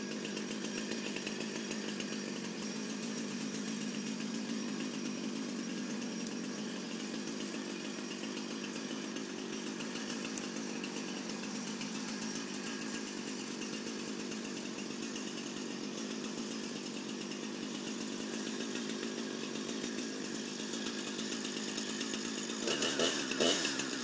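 Husqvarna chainsaw running steadily at a fairly even pitch while felling a dead tree, with a brief louder sound about a second before the end.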